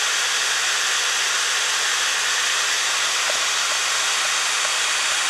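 Large centrifugal blower fan running steadily with an even rushing hiss, blowing air over the heat sink of a 400-watt Peltier cooler.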